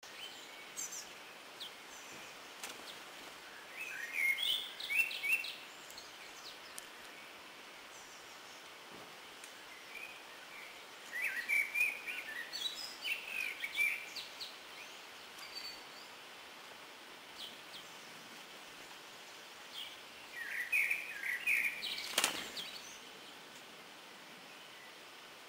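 Small songbirds chirping in three short bouts of quick twittering over a steady hiss, with one sharp click near the end.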